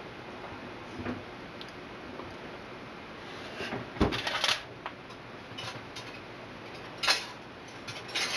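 Handling noises: a few short knocks and rustles over a steady background hiss, the loudest knock about four seconds in, with smaller ones about a second in and near the end.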